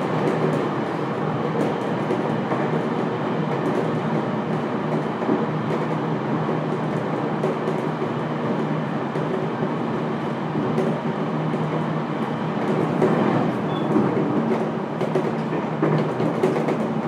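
Running sound inside a JR Kyushu 811 series electric commuter train's motor car (KuMoHa 811-7609) under way: a steady rumble of wheels on the rails, with the hum of the traction motors underneath.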